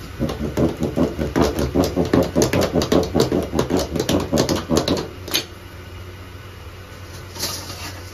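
Plastic spiked pizza dough docker rolled rapidly back and forth over a flattened dough base on a counter, a fast run of rough strokes for about five seconds that ends with a click. A short scrape follows near the end.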